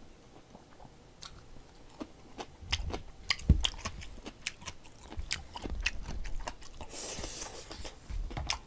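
Close-up chewing and crunching of food, likely pickled radish (danmuji), with many small irregular clicks and a short hiss about seven seconds in.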